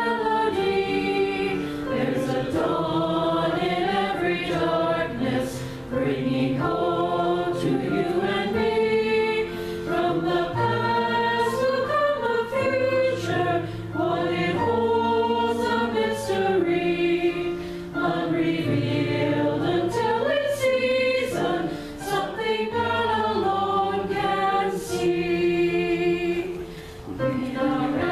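A congregation sings a hymn together, led by a woman's voice, with a keyboard playing along and holding low bass notes under the singing.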